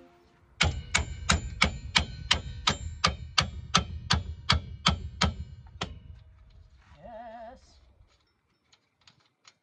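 Hammer blows on a bolt stuck in the rear suspension knuckle: about fifteen evenly spaced, ringing metal strikes, close to three a second, stopping about six seconds in. A short wavering tone follows.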